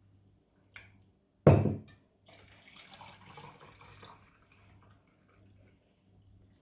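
A sharp knock about one and a half seconds in, then a couple of seconds of liquid splashing and pouring as fresh cucumber and lime juice is mixed together.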